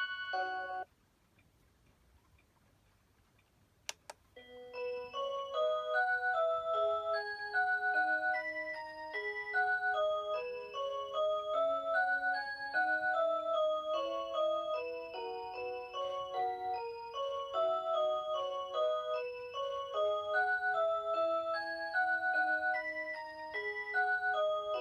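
Rhythm Watch Aria Cantabile alarm clock's electronic 'Aurora Sound' alarm melody, several chime-like notes sounding at once. It cuts off just under a second in. A single sharp click comes at about four seconds, and the melody then starts again and plays on.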